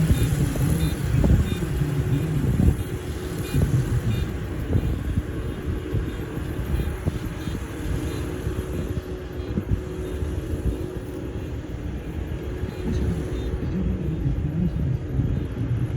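Farm machinery engine running steadily with a low rumble, as a machine works the field during a demonstration of autonomous farm equipment.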